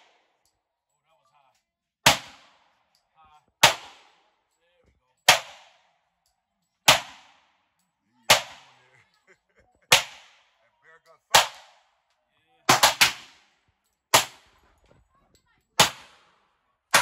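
10 mm semi-automatic pistol fired at a steady pace: about a dozen single shots roughly a second and a half apart, with three quick shots close together a little past the middle. Each shot has a short ringing tail.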